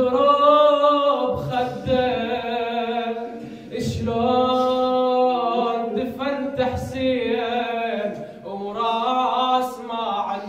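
A man chanting an Arabic elegy unaccompanied, in long held, wavering notes, phrase after phrase with short breaths between them.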